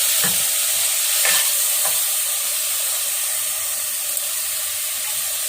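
Chopped onions and green chillies sizzling steadily in hot ghee and oil in a pan, with a spatula stirring and scraping a few times in the first two seconds.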